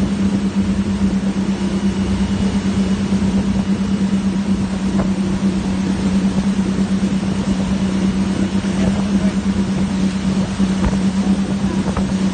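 Motorboat engine running at a constant speed: a steady, unchanging hum over a rushing noise.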